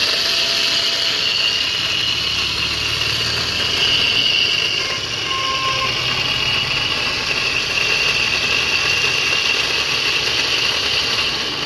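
Electric drive motor of an e-rickshaw running loud and steady, a harsh hum with a continuous high-pitched whine. The noise comes from the motor itself, whose bearings are worn out.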